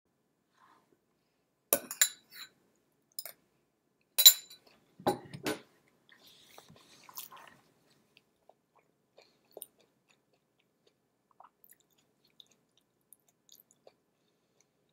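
A handful of sharp clicks and knocks close to the microphone, loudest about four seconds in, followed by only a few faint scattered ticks.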